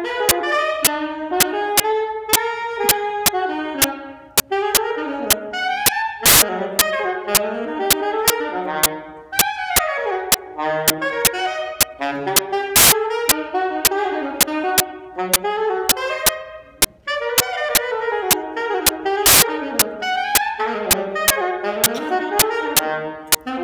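An unaccompanied saxophone plays a fast blues solo of quick runs and leaps. Sharp clicks recur throughout, the loudest about every six seconds.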